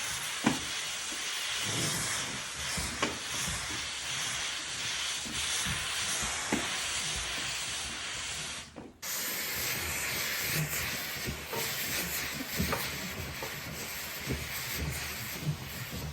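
Polti Vaporetto Pro 95 steam cleaner jetting steam with a steady hiss over sofa upholstery, with scattered light knocks of the nozzle. The hiss cuts out briefly about nine seconds in, then starts again.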